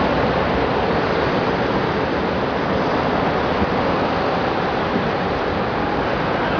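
Steady noise of traffic on a busy multi-lane highway: many cars, vans and trucks passing below.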